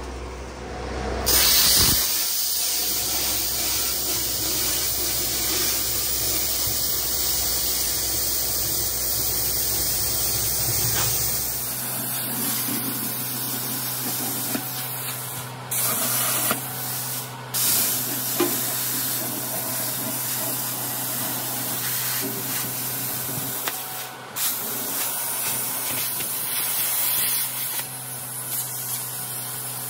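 Plasma cutter cutting through steel: a steady, loud hiss of the arc and compressed-air jet that starts about a second in, with a few brief interruptions.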